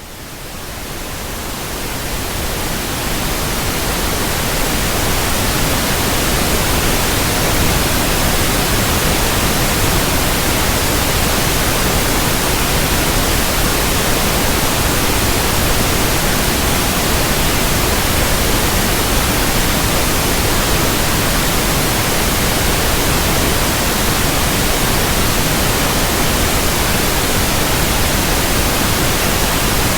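Pink-noise test signal played loud through a PA sound system for a sound check: an even hiss across all pitches that fades in over the first few seconds, then holds steady.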